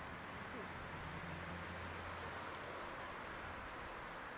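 Quiet garden ambience: short, high-pitched chirps from a small bird or insect repeat about every half second to a second over a steady outdoor hiss, with a low, steady hum during the first couple of seconds.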